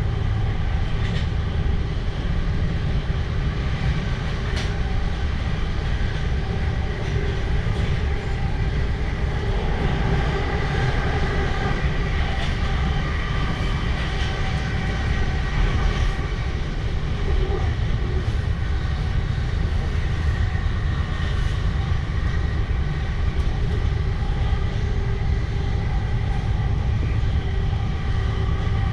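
Electric suburban passenger train running steadily, heard from on board: a continuous low rumble with a steady hum of tones over it and a faint click from the track now and then.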